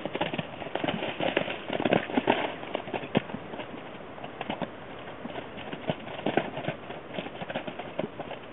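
Hooves of two horses, a Percheron cross and a Tennessee Walking Horse–Quarter Horse cross, striking soft wet ground as they rear and play-fight: irregular hoofbeats, busiest in the first few seconds and thinning out after.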